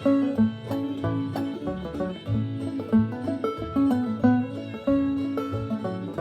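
Clawhammer banjo playing a fiddle tune in the key of A along with a slowed-down fiddle recording: quick plucked banjo notes over the fiddle's held melody notes.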